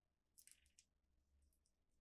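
Near silence: room tone, with a few faint short clicks about half a second in and again near the end.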